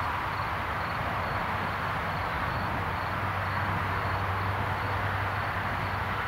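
Bombardier CRJ-900's two rear-mounted General Electric CF34 turbofans running at takeoff thrust, a steady, unbroken jet noise as the aircraft lifts off and climbs away.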